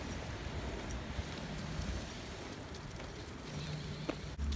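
Footsteps on a leaf-strewn path while a beagle on a lead is walked, with a faint, scattered jingle of metal.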